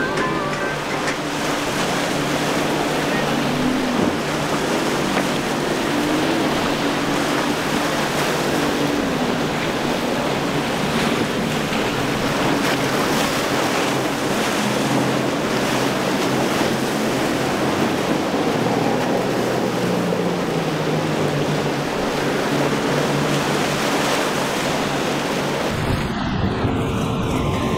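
Choppy inlet water rushing and splashing around a center-console boat running through the waves, with wind on the microphone. Its Yamaha outboard engine drones underneath, shifting in pitch now and then.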